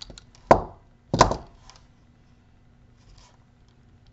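Pliers crushing the yellow cap of a gel-filled wire splice connector down flat: two sharp cracks, under a second apart.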